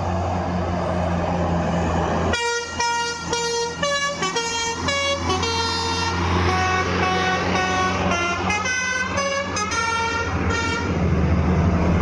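Tour bus's telolet musical air horn playing a melody of short notes, starting about two seconds in and stopping shortly before the end, over the steady drone of the bus's engine as it passes.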